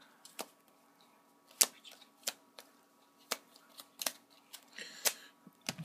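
Trading cards tapped, slid and set down on a table: sharp, irregular clicks and taps about a second apart.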